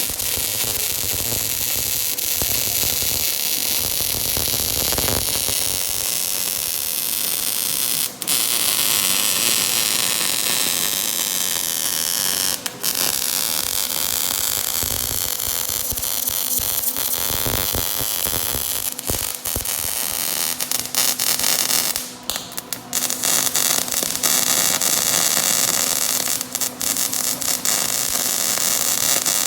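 Electric arc welding: a steady crackling hiss as one continuous bead is run around the corners, with a few brief dips where the arc falters.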